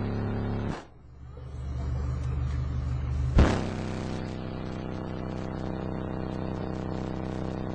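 Two RE Audio SX15 15-inch subwoofers in a ported enclosure playing loud, steady deep bass. The bass cuts out just under a second in and swells back up, with a single sharp knock about three and a half seconds in.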